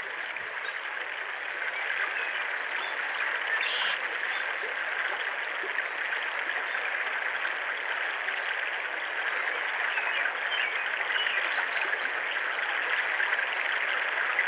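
Shallow river water flowing, a steady rushing hiss; a short high-pitched sound about four seconds in.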